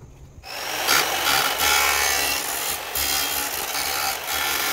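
Chicago Electric miter saw cutting through a 16-gauge sheet-metal plate: a loud, harsh, steady grinding rasp that starts suddenly about half a second in.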